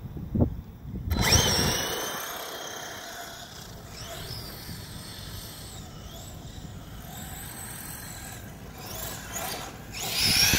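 Electric RC monster truck's brushless motor (Arrma BLX185 on a 4S LiPo, in a Tekno MT410) whining under hard throttle. The tyres scrabble through loose dirt. The truck launches suddenly about a second in, and the whine rises and falls with the throttle, then climbs again near the end.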